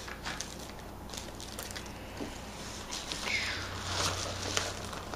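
Padded bubble mailer rustling and crinkling as a hand reaches inside it, louder in the second half, with a few light clicks and taps.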